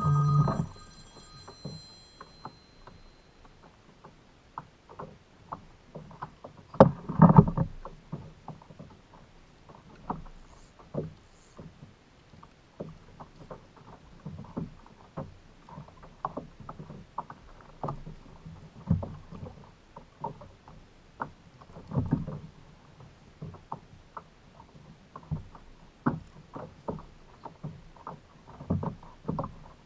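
Kayak on the water: irregular small splashes and knocks against the hull, with a louder splash about seven seconds in.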